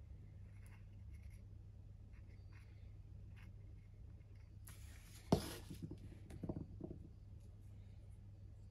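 Small workbench handling sounds while gluing a brass pen tube: faint scratching, then about five seconds in a short hiss ending in a sharp tap, followed by a second of light knocks and scraping as the tube and glue bottle are handled. A steady low hum lies underneath.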